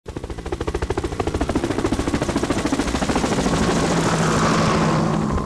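A machine sound with a fast, even chop, like a rotor or engine, that grows steadier and louder toward the end. It starts and cuts off abruptly.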